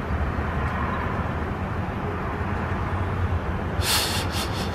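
Outdoor background noise: a steady low rumble, with a short run of sharp crackles near the end.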